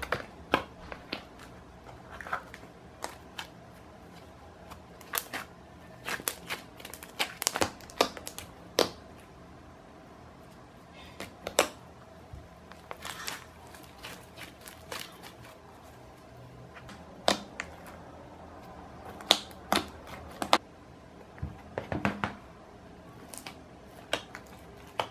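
Homemade slime being poked, squeezed and stretched by hand: scattered sharp clicks, pops and crackles in irregular clusters, with short pauses between them.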